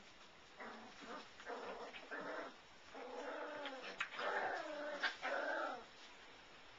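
Five-week-old Labradoodle puppy growling and whining in a string of short pitched calls, the longer and louder ones coming in the second half.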